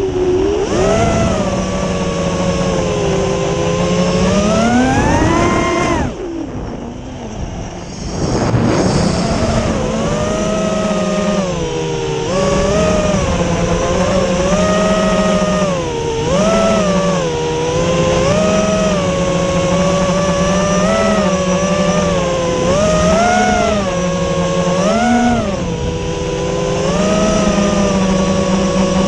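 FPV quadcopter's brushless motors whining, the pitch rising and falling with the throttle. It climbs to a peak about six seconds in, cuts back sharply for a couple of seconds, then comes in a string of short throttle blips before settling into a steady hum near the end.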